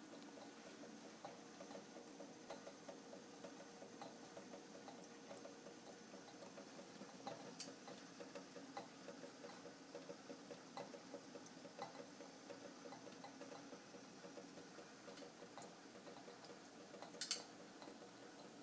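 Faint, rapid, irregular ticking and popping of water boiling in a glass round-bottom distillation flask on a hot plate, with one sharper click near the end.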